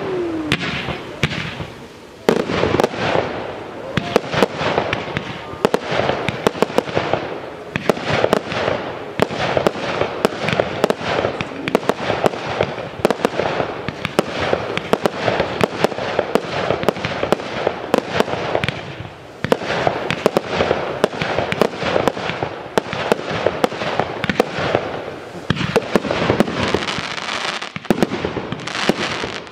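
Aerial fireworks display going off in a rapid, near-continuous barrage of launches, bangs and crackles, with brief lulls about two seconds in, around nineteen seconds and near the end.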